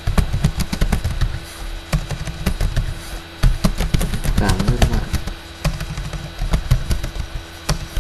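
Computer keyboard being typed on: rapid, irregular key clicks and thumps over a steady low hum.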